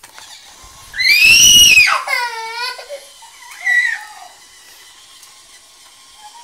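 A toddler's angry scream, loud and high-pitched, rising then falling, followed by a wavering, falling cry and a shorter cry about four seconds in.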